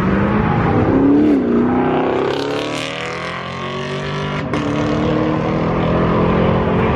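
A car engine running as a vehicle goes by, its pitch rising and falling in the first few seconds and then holding steady.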